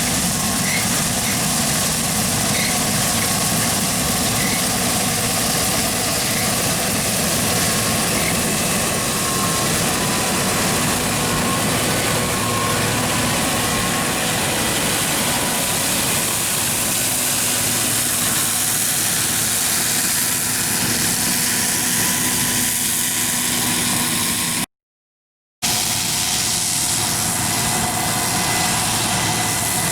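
John Deere 9400 combine running steadily, its diesel engine and machinery giving a constant drone with several steady whine tones over it. The sound cuts out suddenly for about a second near the end, then resumes unchanged.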